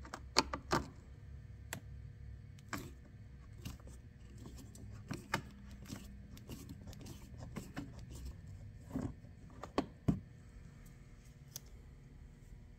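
A screwdriver turning a small screw out of a car's plastic interior door trim: scattered light clicks and taps of the tool on the screw and trim, the loudest about half a second in and again around nine and ten seconds.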